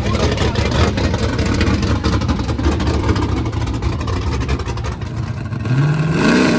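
Loud race engine of a mud-racing vehicle running hard, with a rapid rattling beat of firing pulses. Near the end it revs up in a steeply rising whine.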